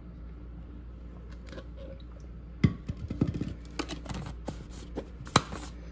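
Steady low hum, then from about halfway a run of sharp knocks and clicks, the loudest near the start of the run and another near the end: kitchen glassware, the emptied measuring cup and the sauce jar, being handled and set down on the counter.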